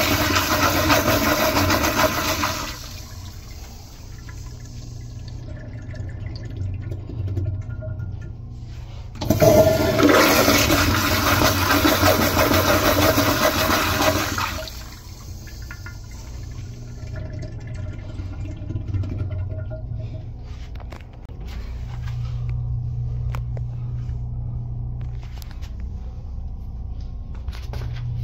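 Standard/American Standard Instanto toilet flushing through its flushometer valve: a strong rush of water into the bowl that drops away after a couple of seconds, then a second loud surge about nine seconds in lasting about five seconds, settling to quieter running water. A steady low hum comes in near the end.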